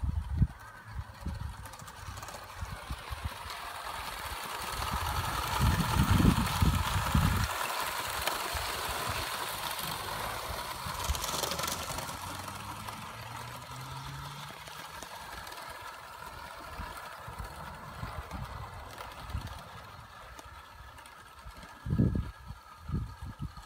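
Live-steam model of an LNER A4 locomotive running past on garden track: steam hiss and exhaust with its running gear, swelling as it comes close about halfway through and fading as it moves away. Wind gusts rumble on the microphone.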